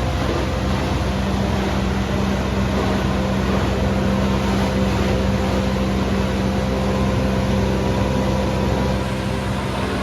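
Hazelnut harvesting machine running steadily, a constant engine hum over a wide mechanical noise, slightly quieter near the end.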